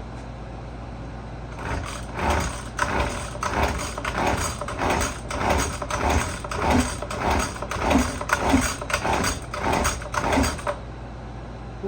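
Recoil starter cord of a Husqvarna 128LD two-stroke string trimmer being pulled over and over, choke on, about two pulls a second for some nine seconds. The engine turns over with each pull but does not catch, and the pulls stop abruptly near the end.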